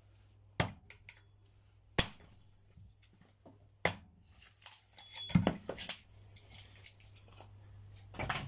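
Firewood being handled: three single sharp wooden knocks about a second and a half apart, then a cluster of knocks and clatter about five seconds in and again near the end.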